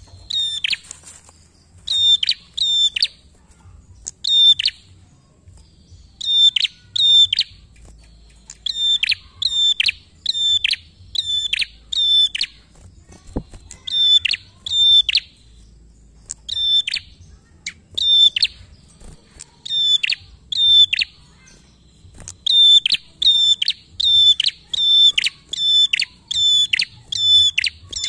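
A caged prenjak, a small rufous-headed tailorbird-type songbird, calling persistently: loud, sharp notes that each sweep steeply down in pitch, given in quick pairs and triplets with short pauses between, over and over.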